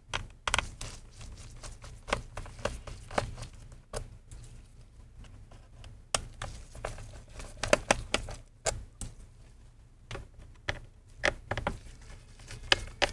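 Small Torx T4 screwdriver working screws out of a laptop's bottom cover: irregular light clicks, taps and ticks of the driver tip, screws and gloved hands against the case.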